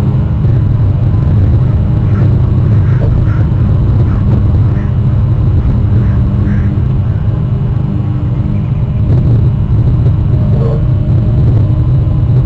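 Steady low rumble of wind buffeting an outdoor nest camera's microphone, with a few faint, short high sounds now and then above it.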